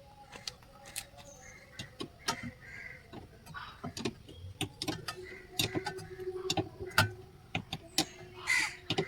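Irregular sharp metallic clicks and taps of a spanner working the nut that holds a wiper arm on its spindle, coming faster and louder in the second half as the nut is tightened. A faint steady hum joins about halfway through.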